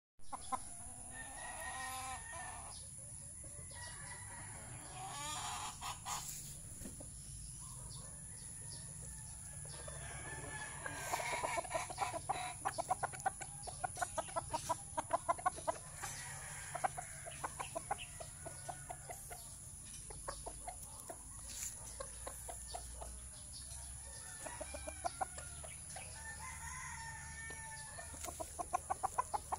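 Chickens clucking, with runs of quick short clucks and a rooster crowing.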